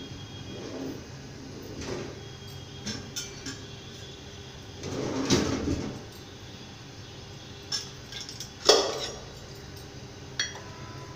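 Kitchen utensils and dishes clinking and clattering as they are handled, with a longer clatter about five seconds in and a sharp knock near nine seconds, over a steady low hum.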